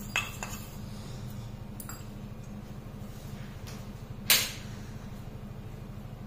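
Steady low hum with two light clicks at the start and one sharp knock or clink about four seconds in.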